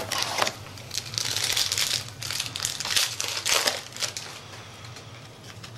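Foil wrapper of a 2008 Leaf Rookies & Stars football card pack crinkling as it is handled and opened. The crinkling comes in bursts and dies down after about four seconds.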